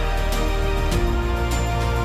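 Background music with a steady beat and sustained notes over a bass line that shifts to a new note about a second in.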